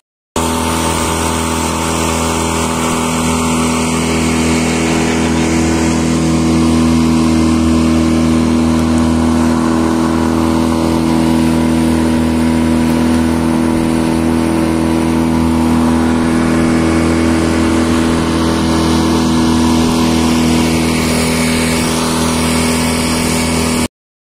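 Small boat's outboard motor running steadily under way, at an even pitch, over a steady rushing hiss; the sound cuts off abruptly near the end.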